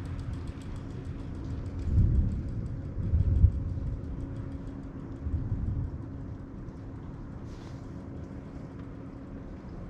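Distant thunder rumbling in low, uneven rolls, swelling about two seconds in, loudest a little after three seconds, with a last swell past the five-second mark before fading to a low background rumble.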